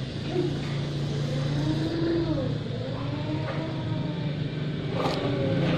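A steady low motor hum, like an engine running, with a sharp click about five seconds in.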